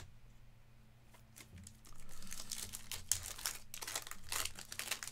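Foil trading card pack wrapper being torn open and crinkled, a dense crackling rustle that starts about two seconds in and stops just before the end.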